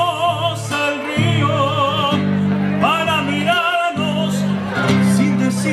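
Male tenor singing an Argentine aire de zamba in a lyric, operatic style, with wide vibrato, over classical guitar accompaniment. The singing comes in several phrases with short breaths between them.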